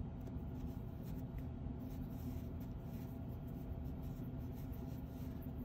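Faint rustling and rubbing of core wool being wound by hand around a wire armature, over a steady low background hum.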